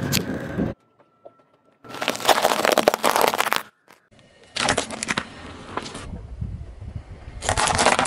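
Car tyre rolling over and crushing brittle things such as candy canes and pistachio shells, cracking and crunching in several separate bursts of a second or two with short quiet gaps between.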